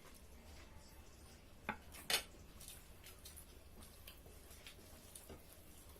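Utensils clinking against dishes while eating, with two sharper clinks about two seconds in and faint small ticks around them.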